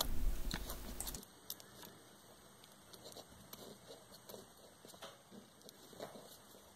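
A low hiss that stops about a second in, then very faint, scattered crinkles and scratches of aluminium foil being rubbed down over a mold with a cotton swab.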